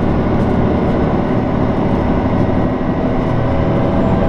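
Kyoto Tango Railway 'Tango no Umi' diesel railcar under way: a steady drone of its diesel engine mixed with the rumble of the wheels on the rails, heard from inside the passenger car.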